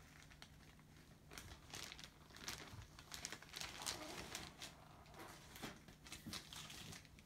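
Faint, irregular crinkling and rustling of packaging being handled.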